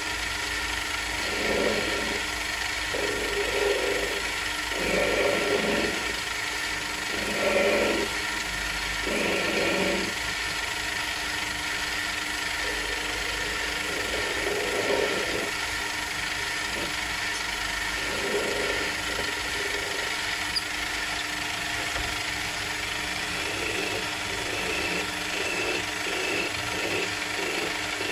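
Small benchtop metal lathe running with a steady motor and gear hum while a cutting tool is fed into the spinning metal, giving irregular scraping bursts of cutting. Near the end, a quicker run of short rasping strokes as a hand file is worked against the turning piece.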